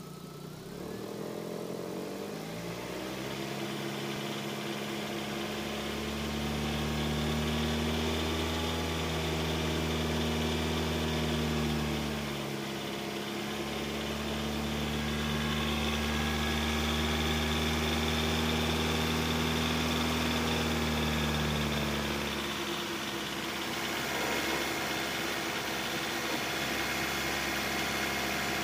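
VAZ-21124 1.6-litre 16-valve engine revved from idle with no load and held at a raised speed, with a brief dip near the middle, then dropping back to idle about three-quarters of the way through. The revving is done to bring out a knock that the owner says appears at about 2000 rpm without load.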